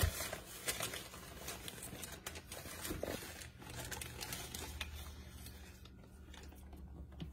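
Plastic bag of powdered sugar crinkling while a metal measuring cup scoops and scrapes sugar out of it, with scattered small clicks and rustles and a light knock at the start.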